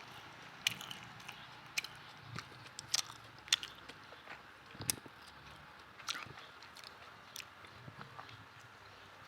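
Irregular light taps and clicks from food preparation, about a dozen spread over several seconds, over a faint steady hiss.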